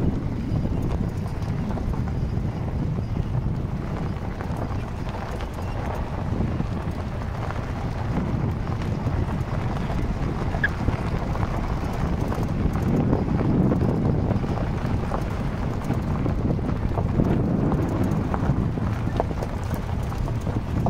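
A vehicle driving over a rough, rocky dirt track: a steady low rumble of engine and tyres with many small knocks and rattles from the stones, and wind on the microphone.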